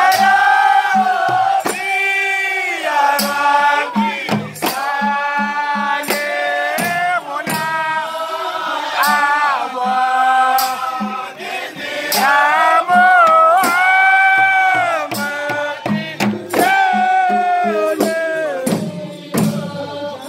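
A group of voices singing a Comorian moulidi devotional chant, with long held notes that rise and fall. Sharp percussive beats, hand claps or a frame drum, keep time about once a second.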